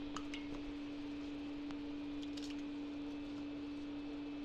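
A steady low hum, with a few faint clicks and small splashes as cut potato sticks are put into a bowl of water: a couple near the start and a few more around two seconds in.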